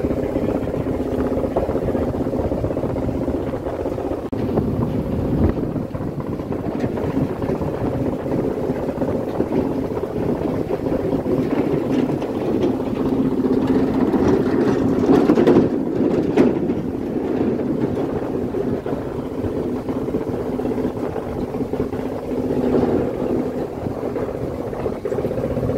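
Diesel engine of a moored fishing boat idling, a steady low drone with an even hum. It swells briefly about two-thirds of the way through, with a few knocks.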